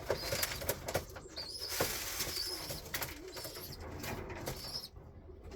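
Pigeons cooing in a loft, with scattered light clicks and taps and a few short high-pitched peeps.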